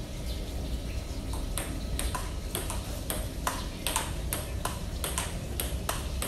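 Table tennis rally: the ball clicking sharply off the paddles and the table, about three hits a second, starting about a second and a half in.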